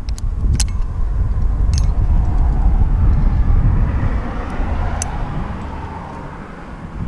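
A motor vehicle passing on a road, its noise swelling and fading over a few seconds over a steady low rumble, with a few sharp clicks.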